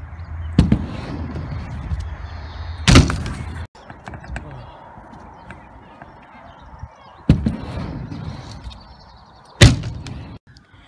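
Stunt scooter wheels rolling over concrete and a wooden ramp, with several sharp slams of the deck and wheels coming down, the two loudest about three seconds in and near the end.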